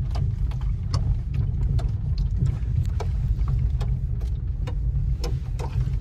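Car driving over a rough, unpaved road, heard from inside the cabin: a steady low rumble overlaid with frequent irregular knocks and rattles as it jolts over the bumps.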